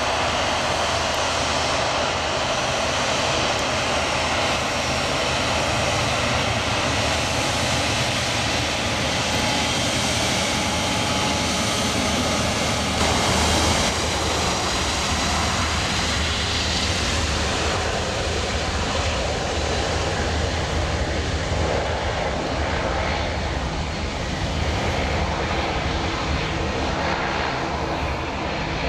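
Airbus A350-900's Rolls-Royce Trent XWB jet engines running at low taxi power as the airliner taxis, a steady jet rush with a faint whine.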